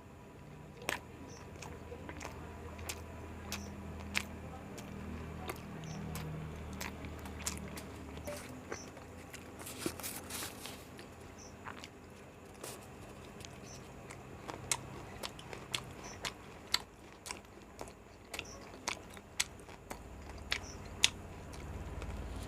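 Close-up eating of an egg roll: biting and chewing, with many short, sharp mouth clicks and crunches at an irregular pace and a brief, louder burst of noise about ten seconds in.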